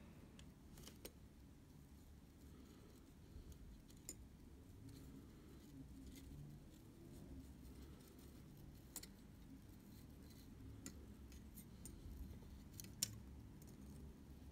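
Faint, scattered small clicks and taps of metal tools working on a Leica II D camera body during shutter-curtain repair, with one sharper click near the end.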